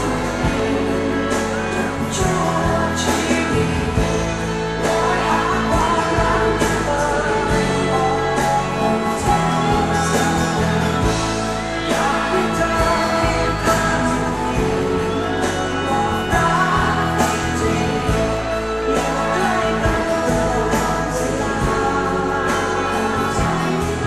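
A pop song performed live: singing over a full band with bass and percussion, running on without a break.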